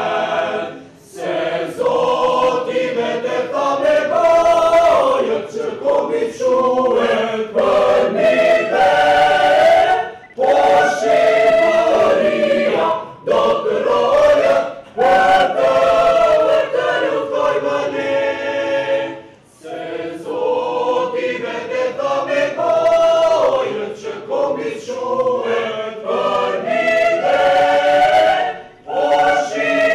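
A mixed youth choir singing together in long phrases, with short breaks between them.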